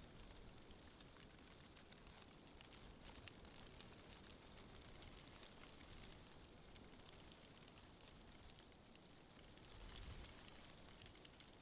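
Faint wind in the trees: a soft, steady hiss with light ticks and rustles, swelling gently near the end.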